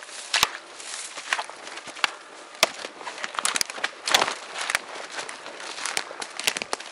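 Footsteps crunching through dry leaf litter and dead twigs on a forest floor, an uneven run of sharp crackles and snaps, with the loudest crack a little after four seconds in.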